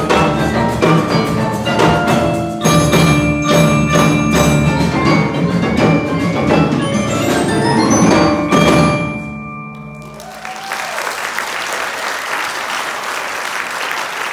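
Percussion ensemble of marimbas, xylophones and other mallet percussion playing the closing bars of a piece, with quick rhythmic struck notes. The music stops about nine seconds in with a final stroke ringing off. The audience then applauds.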